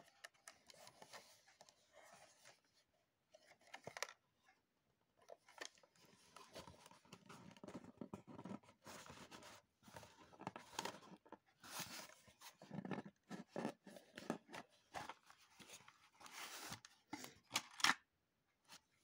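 Small cardboard box being handled and its lid worked open: faint, irregular scraping, rubbing and crackling of card, with a couple of sharp clicks near the end.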